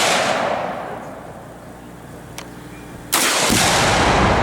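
Loud outdoor blasts with long rolling echoes: the echo of one bang dies away, a single sharp crack comes about two and a half seconds in, and a second, deeper boom comes about three seconds in. These are rifle shots at a Tannerite exploding target, the deep boom most likely the target going off.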